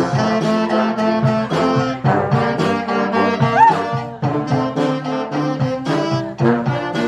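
Brass band playing live: trumpets, trombones and saxophones over a steady drum beat, with one note swooping up in pitch about halfway through.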